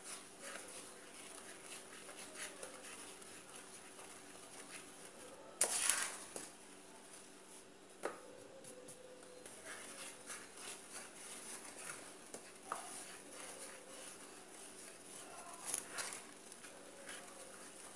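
Spatula stirring a thick chocolate-powder, condensed-milk and cornstarch mixture in a stainless steel pot: faint scraping and soft knocks against the pan, with a sharper knock about six seconds in and smaller ones around eight seconds and near the end.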